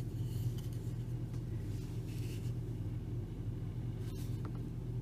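Steady low background hum, with faint rustling of yarn on the crochet hook near the start and again about two seconds in.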